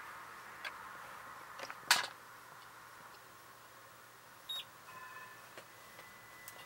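Light plastic clicks and one sharp knock about two seconds in as a handheld Sosna radiation dosimeter is handled and set down. A few seconds later come short steady electronic tones.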